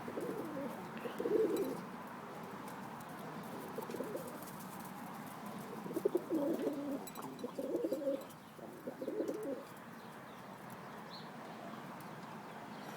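Pigeons cooing in a loft: several rounds of low cooing, one about a second in and a longer run from about six to nine and a half seconds.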